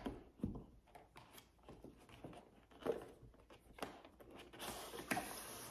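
Cardboard packaging being handled: a graphics-card box's outer sleeve being slid off the inner box, with a few soft taps and knocks and a quiet scraping slide near the end.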